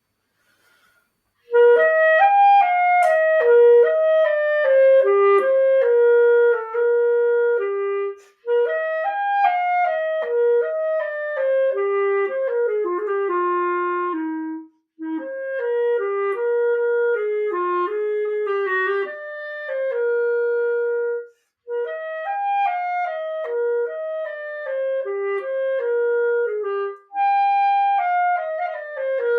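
Clarinet played through a restored, century-old wooden Buffet mouthpiece with a Vandoren Blue Box 3 reed: a fluid legato melody in several phrases, starting about a second and a half in, with short breaks for breath between phrases.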